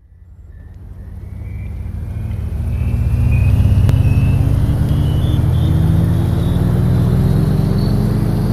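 Electronic soundtrack: a deep rumbling drone fades in over the first three seconds, with tones that keep rising slowly in pitch, like a cinematic riser.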